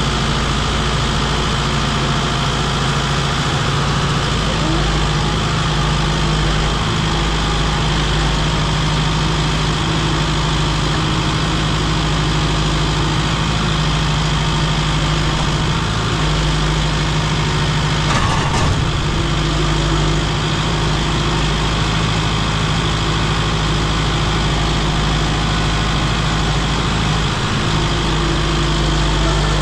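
A work vehicle's engine running steadily at an unchanging speed.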